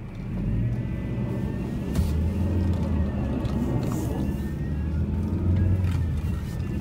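Car engine and road noise heard from inside the cabin as the car pulls away: a steady low rumble that builds up during the first second and then holds.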